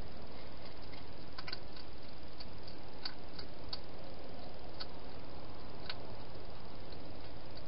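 Hedgehog eating at a feeding bowl: irregular, sharp crunching clicks from chewing food, a few at a time, over a steady hiss.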